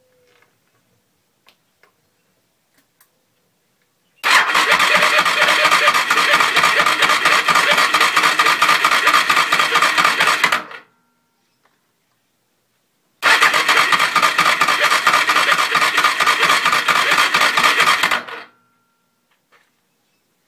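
Suzuki DR650's single-cylinder four-stroke engine being cranked by its starter in two long bursts, about six and five seconds, each stopping abruptly without the engine catching. The engine was run out of oil, and the owner fears it is ruined inside.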